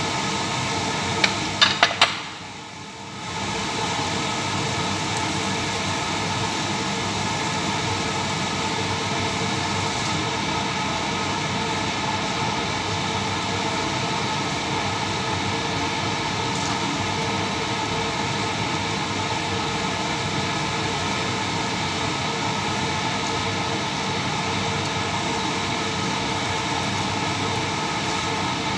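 Steady fan-like whooshing with a faint hum. About one and a half seconds in, a quick run of sharp clicks as the swing-top lid of a glass jar is clamped shut; the noise then drops away briefly and returns.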